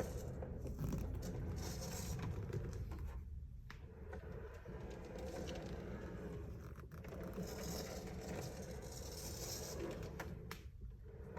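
Luar barber chair swivelling, its rotating base giving a gritty 'shari-shari' scraping rustle as it turns, in passes broken by short pauses about three, seven and eleven seconds in. The noise persists even after a bearing replacement and fresh grease, and its cause is unknown to the owner.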